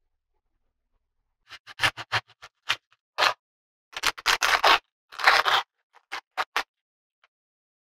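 A run of short, irregular scraping and clattering sounds from kitchen food preparation, starting about a second and a half in, the longest and loudest a little past the middle.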